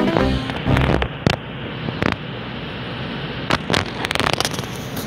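Handling noise from a phone held at arm's length: several sharp knocks and clicks over a steady hiss as a hand moves close to and brushes the phone.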